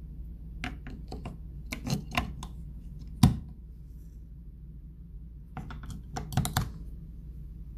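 Clicks and taps of AA batteries being handled and pried out of a smart deadbolt's plastic battery compartment, in short bursts with one sharp louder click a little past three seconds in.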